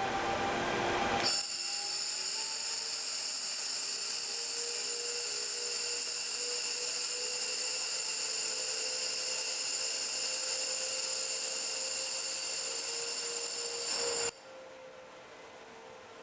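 Handheld fiber laser welder with wire feeder firing: after a brief rough noise, a loud, steady high-pitched hiss and whine starts about a second in. It cuts off suddenly near the end, leaving the machine's quieter steady hum.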